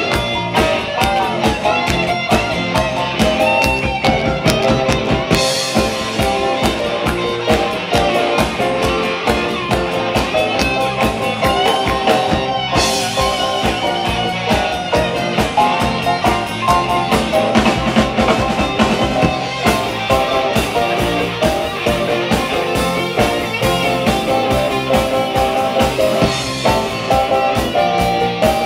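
Live rock band playing an instrumental passage with no singing: guitar lines over bass and a drum kit keeping a steady beat.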